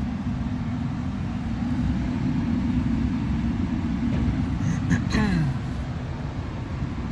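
A steady low rumble, like a running machine or vehicle, with a brief voice about five seconds in.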